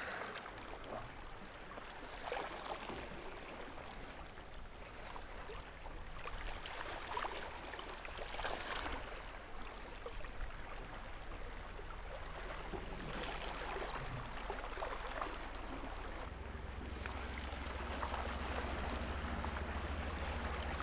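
Gentle sea water lapping and sloshing against the rocks, in small irregular splashes, with a low steady rumble that grows louder about three quarters of the way in.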